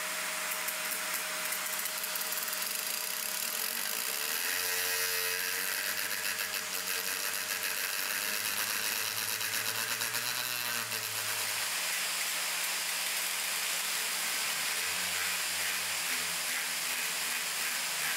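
Angle grinder running steadily, its disc grinding metal with a dense high hiss.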